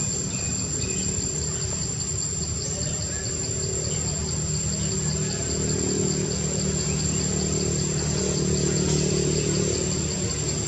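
Insects chirring outdoors, a steady high whine with a fast pulsing trill, over a low steady droning hum.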